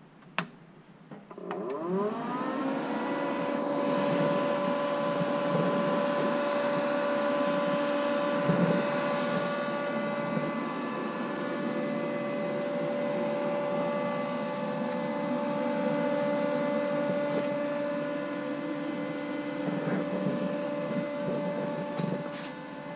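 PrimeWeld MIG180 MIG welder switched on with a click. Its always-on cooling fan spins up, rising in pitch over about a second, then runs as a steady hum with a whine of several tones while the machine sits idle.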